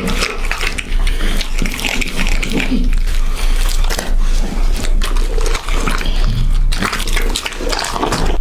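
A dog eating up close, with a dense run of biting and chewing sounds.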